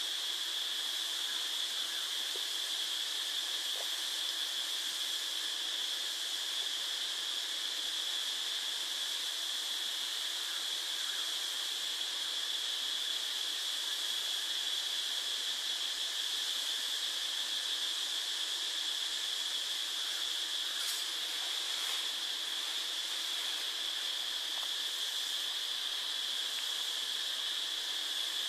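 Steady hiss with a constant high-pitched whine, unchanging in level, and no meowing.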